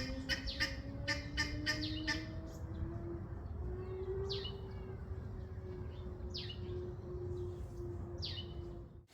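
Garden birds calling: a fast run of repeated chattering notes for the first two seconds, then three short downward-sweeping chirps about two seconds apart. A faint steady hum slowly rising in pitch runs underneath.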